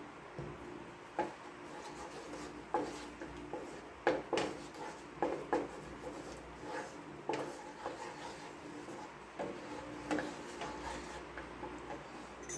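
Wooden spatula stirring and scraping thick sauce around a granite-coated wok, with irregular knocks and scrapes of the wood against the pan.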